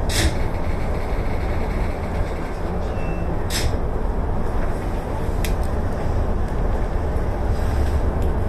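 Electric commuter train running on the rail line, heard from the cab as a steady low rumble. Two short bursts of hiss come near the start and about three and a half seconds in, and a light click follows a couple of seconds later.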